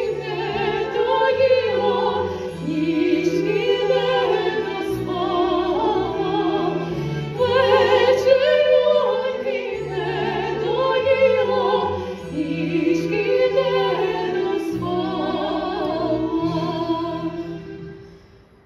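Women singing on stage with strong vibrato over instrumental accompaniment, heard live from the audience; the music dies away near the end.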